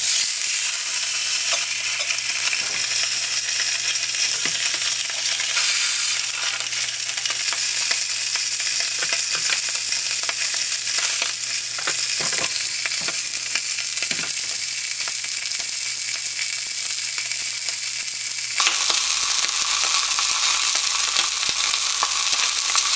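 A butterflied salted mackerel frying in hot oil in a frying pan: a loud, steady sizzle that starts suddenly as the fish goes in, with scattered pops of spitting oil.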